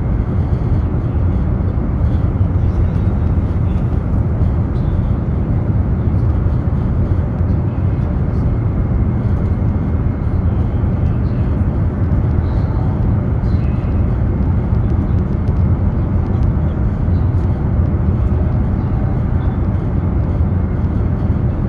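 Steady low rumble of a high-speed train running at speed, heard inside the passenger carriage.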